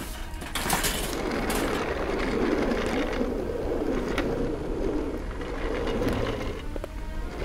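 Hospital stretcher's small wheels rolling and rattling over pavement as it is pushed. The rumble starts about half a second in and stops about a second before the end.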